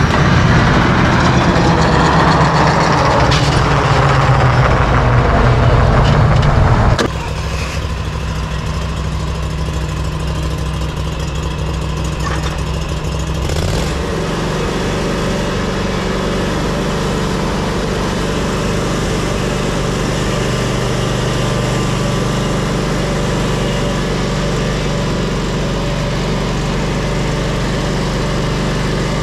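Ride-on lawn mower engine running steadily. About seven seconds in the sound drops suddenly to a quieter, steady engine hum.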